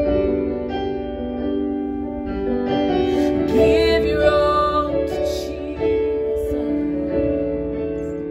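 A woman singing a slow worship song over sustained keyboard chords. Her voice grows louder and wavers with vibrato about four seconds in.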